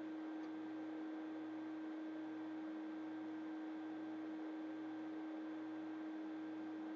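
A steady electrical-sounding hum on one unchanging tone, with a fainter low throb underneath that pulses about once a second; no hiccup is heard.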